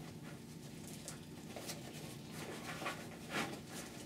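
Faint handling sounds of an avalanche airbag pack: nylon fabric and webbing rustling and scraping, with a few soft clicks as the airbag's hooks are worked into the webbing loops.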